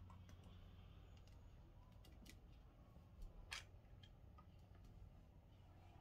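Near silence, with a few faint clicks of plastic toys being handled, mostly a little past three seconds in.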